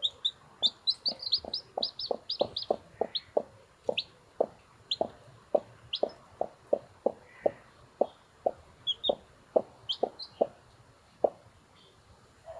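Brahma hen clucking in a steady run of short low clucks, about two to three a second, stopping near the end, while her newly hatched chicks give short high peeps, a quick flurry of them at the start and scattered ones after.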